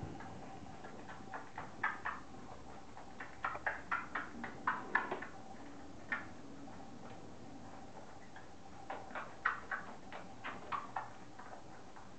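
Several bursts of quick, sharp clicks as fox terrier puppies and an adult dog scramble and play on a tiled floor: claws tapping on the tiles, over a faint steady hum.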